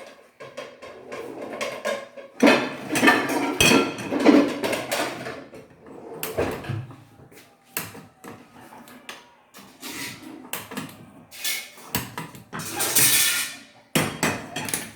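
Kitchen handling sounds: a metal pan and utensils knocking and clattering on a gas stove in irregular bursts, with the loudest stretch a few seconds in and another near the end.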